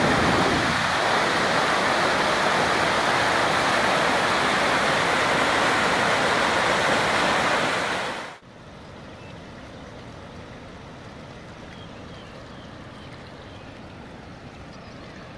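Rushing mountain stream tumbling over boulders, a loud steady roar of water that cuts off abruptly a little past halfway, leaving a much quieter steady water sound.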